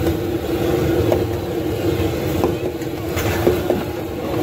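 A steady mechanical hum with a constant tone over a low rumble, engine-like, with a few light clicks as an oiling brush taps on the steel griddle.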